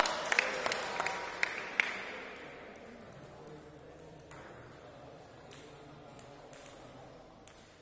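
Plastic table tennis ball bouncing on the hard floor, a quick series of sharp clicks over the first two seconds that then fade out, followed by a few faint scattered ticks.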